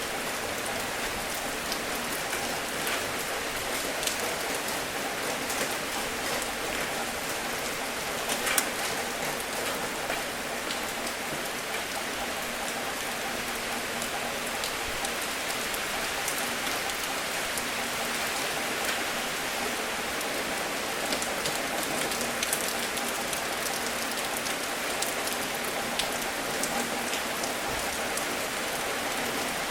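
Steady rain falling, with many small drop ticks scattered through the hiss and one sharper drip about eight seconds in.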